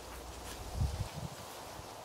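Footsteps on grass: a few soft, low thuds about a second in, over faint outdoor ambience.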